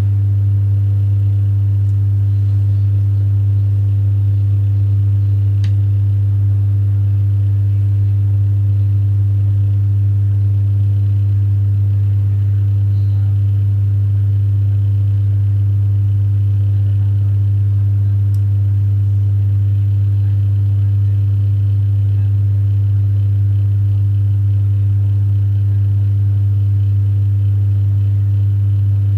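Loud, steady electrical hum: one deep buzzing tone with fainter overtones above it, and a faint tick about six seconds in and another near eighteen seconds.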